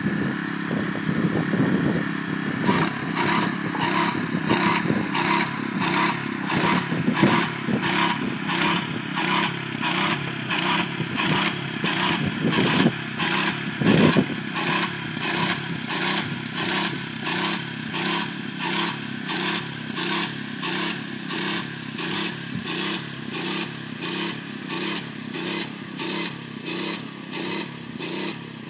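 Walk-behind airless paint striping machine running: its small engine runs steadily under a hiss that pulses about twice a second. There is a louder knock about halfway through, and the sound grows a little fainter near the end.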